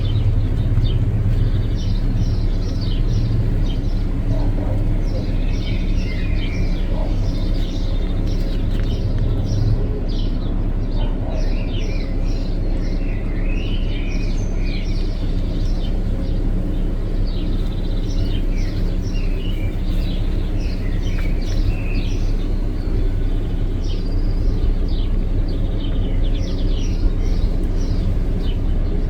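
Small birds chirping and twittering in many short calls over a steady low rumble with a faint hum, the rumble a little louder in the first ten seconds.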